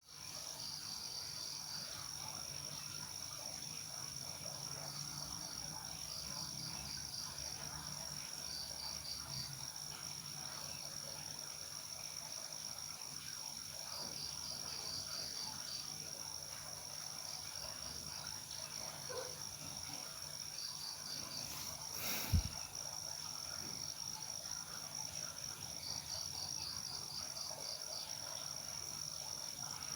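Night insect chorus: crickets chirping in short pulsed trains over a steady high-pitched insect drone. A single thump sounds about two-thirds of the way through.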